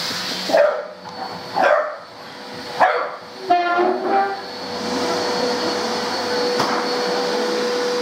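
A dog barks three times, then gives a short whining cry, over a vacuum cleaner running with a steady hum; for the second half only the vacuum cleaner is heard.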